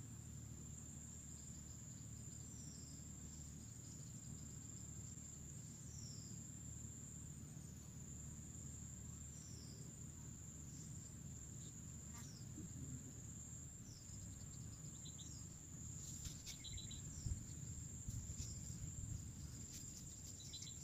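Insects chirring in one steady high-pitched tone, with short falling chirps repeating every couple of seconds. A few faint clicks and rustles come in the last few seconds.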